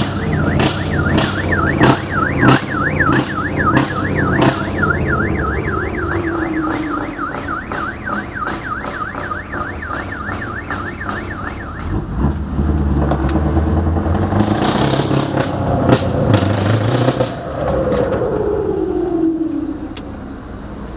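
Scania V8 truck engine running, heard from inside the cab, under a fast warbling siren-like alarm tone with regular sharp ticks. The warble stops about twelve seconds in, the engine note grows deeper and stronger, a burst of hiss follows, and a falling whine comes near the end.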